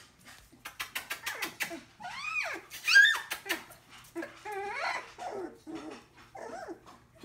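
Collie puppies, nearly three weeks old, yipping and whining at each other in play. A run of quick ticks in the first two seconds, then high yelps that rise and fall, the loudest about three seconds in, and shorter, lower yips after.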